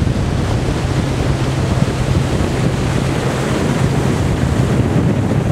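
Wind buffeting the microphone on a moving motorboat, over the steady low hum of its motor and water rushing past the hull.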